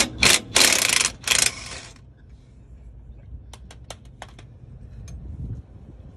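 Cordless impact wrench hammering on a leaf-spring clamp bolt in three short bursts over the first two seconds, loosening it to take the leaf pack apart. A few light metal clinks follow about three and a half to four and a half seconds in.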